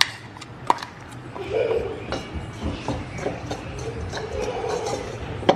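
Metal spoon scraping and clinking against a metal bowl while stirring grated coconut and jaggery together, with a few sharp clinks (one at the start, one at about a second, one near the end) over a gritty scraping.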